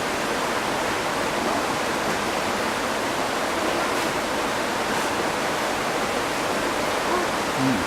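Steady rushing of a waterfall just below, an even roar of falling water that does not change.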